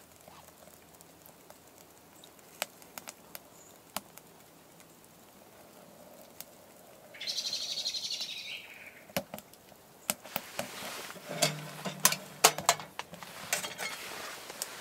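Split logs crackling and popping in a Winnerwell steel wood stove, with a brief hiss about seven seconds in. Near the end, a run of metal clanks and knocks as the stove's steel door is swung shut and latched.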